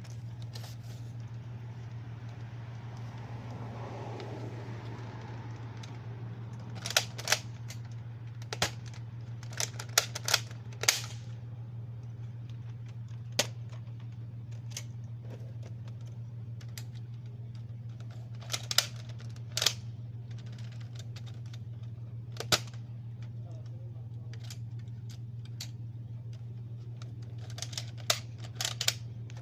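Scattered sharp clicks and knocks from a Nerf toy blaster and its foam dart being fired and handled, in small clusters, over a steady low hum.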